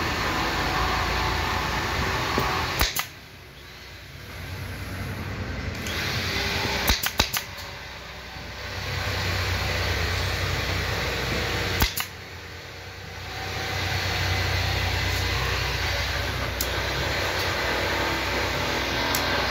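Sharp clacks of a pneumatic staple gun firing staples through upholstery fabric into plywood: single shots spaced a few seconds apart, with three in quick succession about seven seconds in. A steady machine hum runs underneath.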